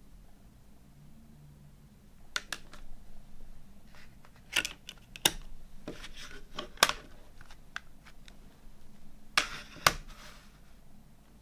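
A CD case and its packaging being handled: several sharp plastic clicks and taps, with soft rustling between them. The loudest clicks come in the middle and a pair near the end.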